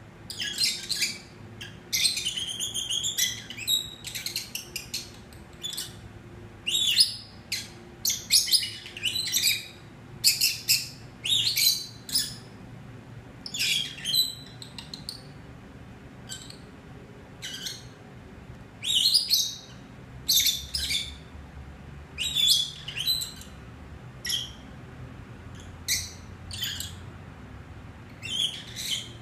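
Peach-faced lovebirds chirping: short, shrill, high-pitched calls in clusters, repeated irregularly every second or two.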